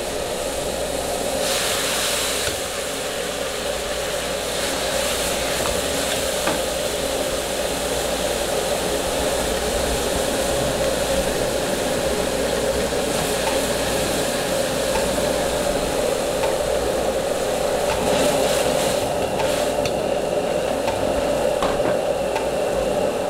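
Gas wok burner running with a steady rush under a wok, with sauce bubbling and sizzling in the wok. A louder burst of sizzling comes about two seconds in, and another briefly near the end.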